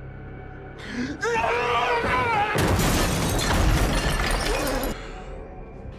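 A man's enraged yell, then a loud crash of shattering glass lasting about two seconds and cutting off suddenly.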